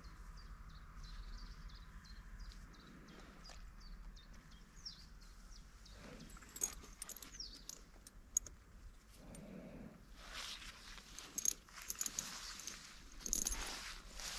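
Footsteps rustling and crackling over the forest floor, irregular, starting about six seconds in and growing denser and louder after about ten seconds. Faint bird chirps sound earlier on.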